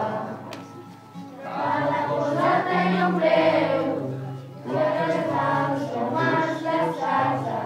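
Children's choir singing together in three phrases, with short breaks about a second in and about four and a half seconds in.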